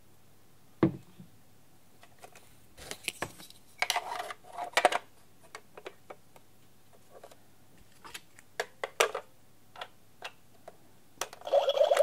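Plastic knocks and clicks as a toy coffee maker is handled, with one louder thump about a second in and scattered taps after it. Near the end its small pump motor starts with a steady buzzing whir as it begins dispensing water.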